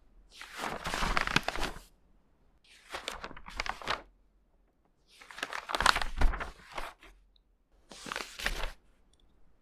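Pages of a vintage magazine turned by hand four times, each turn a rustle of paper lasting one to two seconds, with short silent gaps between.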